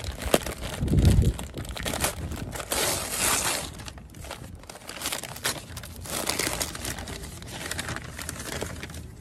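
Newspaper wrapping crinkling, rustling and tearing as it is pulled off a wrapped orchid plant, in irregular crackly bursts. A low thump about a second in is the loudest moment.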